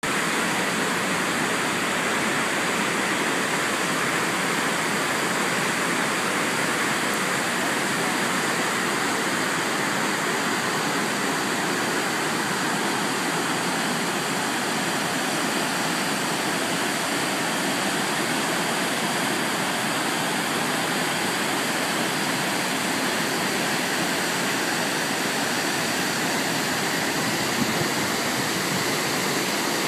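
Steady, unbroken rush of water from the Iguaçu Falls cascades and the churning river below.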